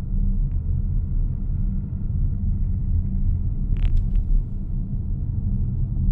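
Mazda CX-60 on the move, giving a steady low rumble of drivetrain and road noise. A short click comes about half a second in, and a brief cluster of sharper knocks a little before four seconds in.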